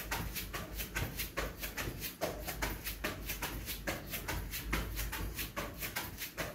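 Feet landing in a quick, even rhythm of thuds, several a second, with clothing rustling, from a person doing jumping jacks as a warm-up.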